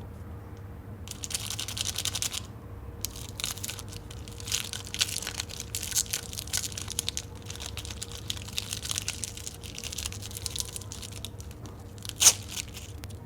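Plastic snack packaging being crinkled and torn open in rough bursts for about ten seconds, ending with one sharp snap.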